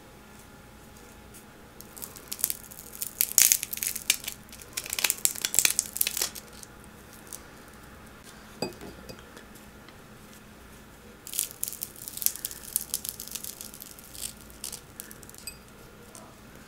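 Crisp crackling as a deep-fried donut made from udon dough, with a crunchy crust, is torn apart by hand, in two bouts: one from about two seconds in lasting a few seconds, and another starting a little past the middle.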